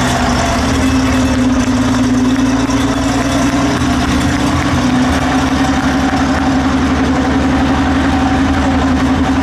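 Tiger I tank's Maybach V12 petrol engine idling steadily.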